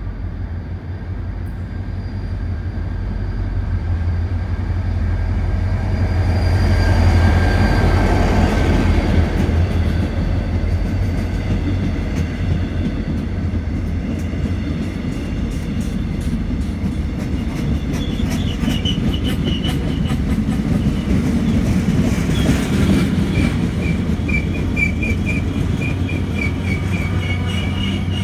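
Korail passenger train running in along the platform and rolling past. It gets loudest as the front goes by, then there is a steady rumble with wheel clatter and short high squeals from the wheels as the coaches pass.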